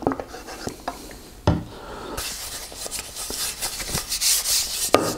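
Hand rubbing walnut oil into the back of a carved wooden plate, a dense dry rubbing swish that starts about two seconds in. A few sharp knocks come at the start, about a second and a half in, and near the end.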